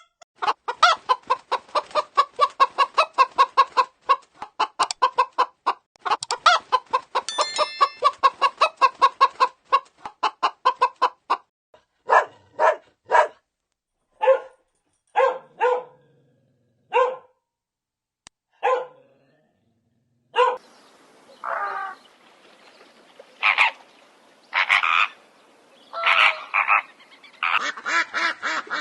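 Chickens clucking: rapid runs of clucks for the first ten seconds or so, then separate, spaced calls, and rougher calls over a background hiss near the end.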